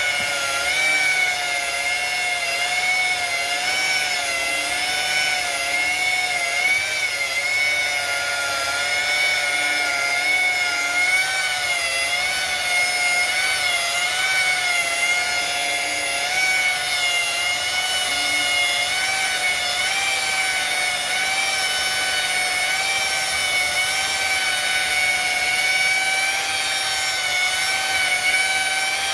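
Electric car polisher spinning a foam pad with polishing paste against a plastic headlight lens: a steady motor whine whose pitch wavers slightly.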